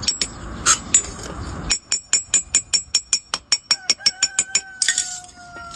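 Rapid, even series of light metallic taps, about six or seven a second, as a hammer works a sheet-iron cooking spatula. A steady ringing tone comes in under the taps about two-thirds of the way through and slowly sinks in pitch.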